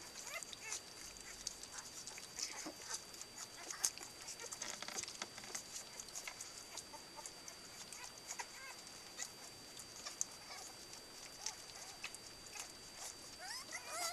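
Cardigan Welsh Corgi puppies, 16 days old, eating together from one round bowl. Many small wet clicks of lapping and smacking, with a few squeaks and a short rising whine near the end.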